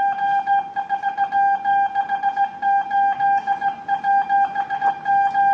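Morse code sent by hand on a telegraph key, heard as one steady-pitched beep keyed on and off in dots and dashes. It is spelling out numeric code groups.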